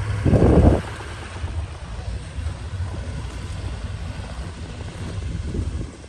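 A vehicle engine running steadily with a low rumble, with one brief loud burst of low noise about half a second in.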